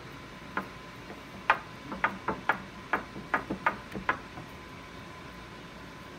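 About ten light taps and knocks over some three and a half seconds, then they stop, as hands press pie-crust dough into a ceramic pie dish. A faint steady tone runs underneath.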